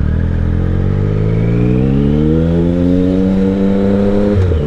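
Triumph Speed Triple's 1050 cc three-cylinder engine pulling hard under acceleration, its pitch climbing steadily, with a short break near the end as it shifts up a gear.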